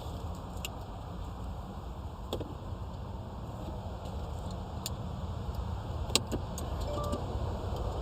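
Car being tried with newly cut keys: a low steady hum with scattered sharp clicks, the loudest about six seconds in. Near the end the car's electronic warning chime begins.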